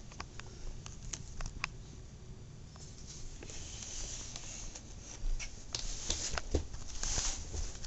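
Scattered small clicks and rustling, with louder brushing and scuffing sounds in the second half.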